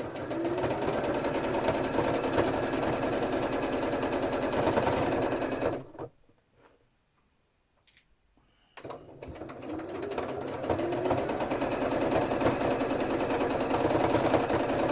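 Electric sewing machine stitching at speed, its needle strokes fast and even, with a rising whine as the motor speeds up. It stops about six seconds in, then starts again about three seconds later and runs on.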